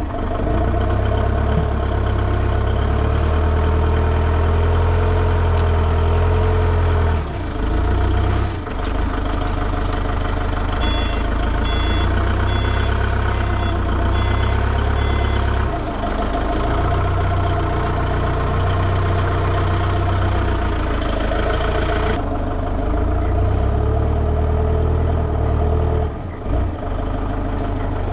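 Forklift engine running, its note changing several times as the machine is driven and worked.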